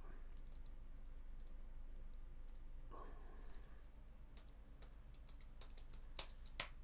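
Faint, scattered light clicks and ticks, with two sharper clicks about half a second apart near the end.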